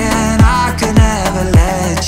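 Music: a deep bass kick that drops in pitch, about twice a second, under a melody.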